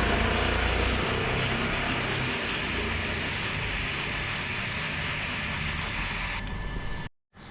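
Motorcycle drive chain and rear wheel spinning freely on the stand after being turned by hand, the chain running over the sprocket with a steady whirring that slowly fades. It cuts off suddenly near the end.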